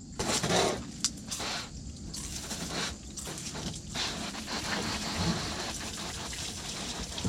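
Wet squishing and scraping as a freshly plucked and gutted chicken carcass is handled and its wings tucked back, with a few short bursts over a steady hiss.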